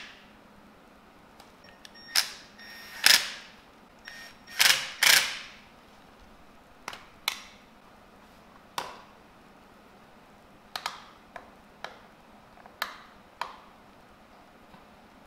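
Hard plastic knocks and clicks as a LED headlight on a 3D-printed ABS bracket is pushed and wedged into a dirt bike's plastic headlight cowl, a tight fit. A cluster of louder clunks comes in the first few seconds, followed by sharper single clicks about a second apart.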